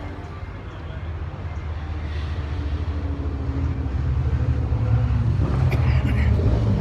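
Motor vehicle engine rumble growing steadily louder as it approaches.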